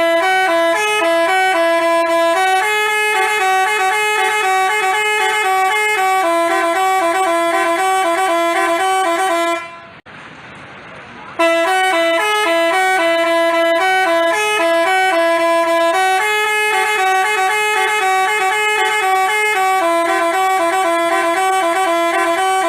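Basuri telolet horn, a multi-note musical horn, playing a stepped melody of held notes for about ten seconds. It breaks off for about a second and a half, then plays the melody again.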